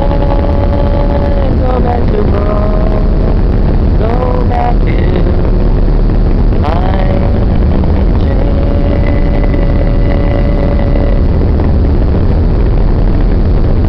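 Steady loud rumble of a fast ferry's engines and churning wake, with wind on the microphone. Over it, a voice sings drawn-out notes now and then, each sliding into a held pitch.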